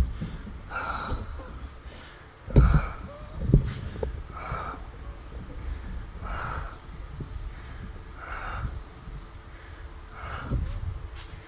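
A person breathing heavily through the nose, about one breath every two seconds, with two dull knocks about two and a half and three and a half seconds in.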